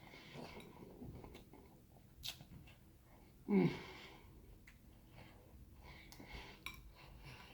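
Close-miked eating sounds: chewing and small mouth clicks, with a short, loud vocal sound that falls in pitch about three and a half seconds in.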